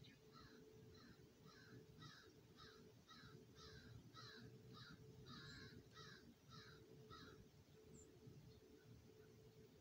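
Blue jay giving a rapid series of short, harsh calls, about two or three a second, which stop about seven seconds in.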